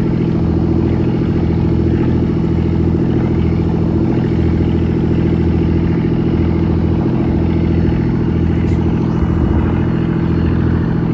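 Fishing boat's engine running steadily: a constant low hum with a gently pulsing throb.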